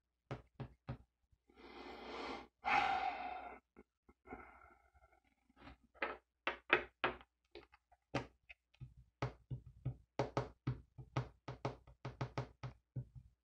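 Light handling sounds of a laptop's plastic bottom cover and a screwdriver being worked: a short scraping rustle about two seconds in, then a run of small sharp clicks and taps, two or three a second.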